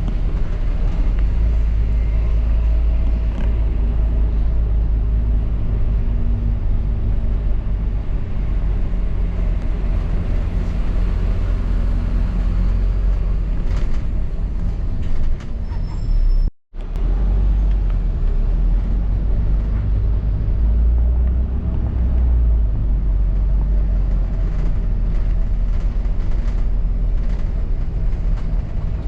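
London double-decker bus running, heard from on board: a steady low engine and road rumble with small knocks and rattles from the bus body. The sound cuts out for a split second a little over halfway through.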